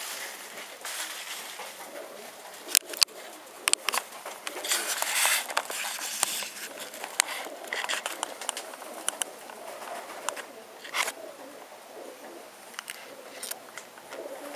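Domestic pigeons cooing, among scattered sharp clicks and short bursts of rustling noise.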